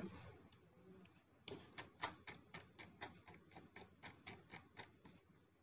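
Faint, quick clicks, about four a second, starting about one and a half seconds in: a computer mouse's scroll wheel turning notch by notch.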